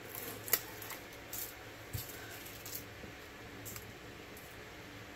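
Dried bay leaves rustling and ticking softly as they are handled and laid on a countertop, a few short light crinkles spread through, over a faint steady hum.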